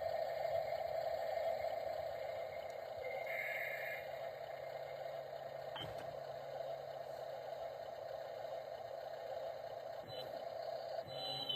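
Steady whine of a radio-controlled construction model's small electric motor and gears running, with a single click about six seconds in.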